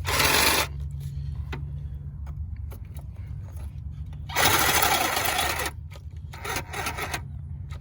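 Cordless reciprocating saw running against a seized steel tie rod, a steady buzz with two louder stretches of cutting noise, at the start and about halfway through. Its battery is running flat.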